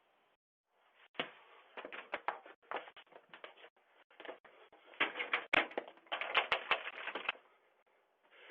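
Irregular run of taps, knocks and clatters, starting about a second in and growing busier before stopping, heard through a doorbell camera's narrow-band microphone.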